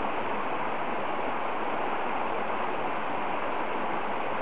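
Stream water rushing, a steady even hiss.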